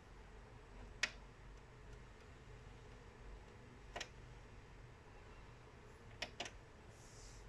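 Four sharp clicks over a faint room hum, from the front-panel buttons of an SFR fibre box being pressed to switch it off for a restart. The first click, about a second in, is the loudest, and the last two come close together near the end.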